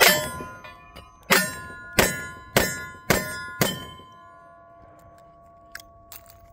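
Six shots from a Smith & Wesson 686 .357 Magnum revolver firing 178-grain lead handloads: one, a pause of about a second, then five quick shots about half a second apart. Each hit sets the steel targets ringing, and the ringing fades away after the last shot, with a few faint clicks near the end.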